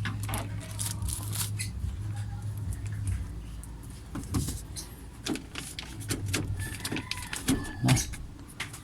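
Plastic sheeting rustling and crinkling, with scattered short taps and clicks, as a car door's plastic vapour barrier is pressed back onto its sticky sealant. A steady low hum runs under it, dropping out about three seconds in and returning briefly near the end.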